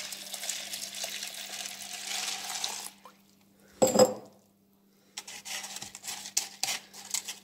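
Water pouring from a glass jar onto dry sunflower seeds in a plastic bottle for about three seconds. About a second later the glass jar is set down on the counter with a single ringing clink, and then a hand stirs through the wet seeds in a run of small clicks and rattles.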